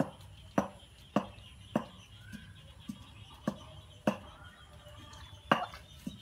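Steady chopping, a blade striking hard about once every 0.6 seconds, with a pause of about a second and a half before the last two strokes.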